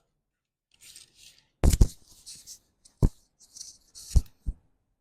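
A wooden board handled on a saw table and set against its stop: scraping and sliding, with sharp knocks, two close together about a second and a half in, then single ones at about three, four and four and a half seconds.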